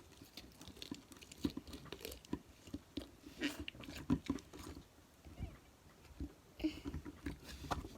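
Faint, scattered clicks and crackles of slime and its plastic containers being handled and put away.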